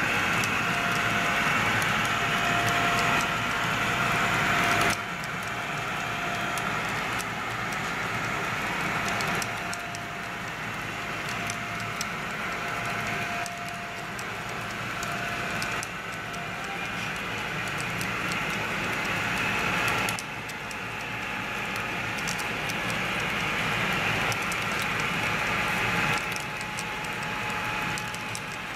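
HO scale model freight train running along the layout track: a steady rolling rattle of wheels on rail with a faint steady whine, changing level suddenly several times.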